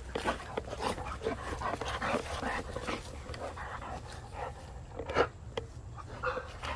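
American Bully dogs panting while playing over a stick, with a run of short irregular noises and one louder one about five seconds in.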